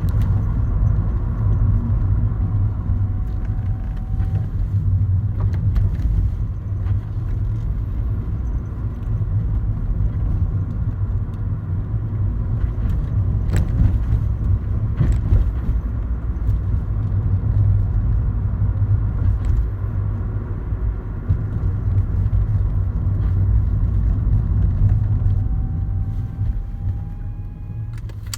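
Steady low road and drivetrain rumble inside a moving Honda Fit GE8, with a faint 'poo' hum heard twice as the brakes are applied slowly: briefly a couple of seconds in, and again for about three seconds near the end, rising slightly in pitch. The cause of the brake-related hum is unknown to the owner.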